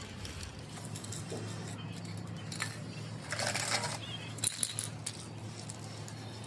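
Light metallic clinks and a short rushing scrape as metal parts and tools are handled, over a steady low hum.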